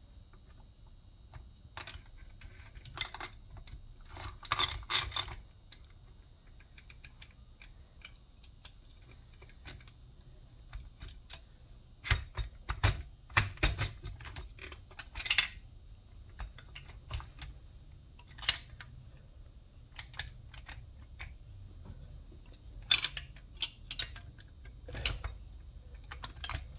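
Irregular small metallic clicks and taps of bolts, nuts and washers being handled and fitted by hand, with louder clusters of clicks about halfway through and again near the end.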